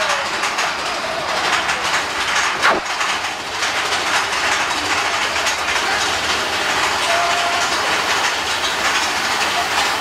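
Amusement-park ride train rolling along its track: a steady rumble and clatter of wheels, with a sharp knock under three seconds in and a faint brief squeal around seven seconds in.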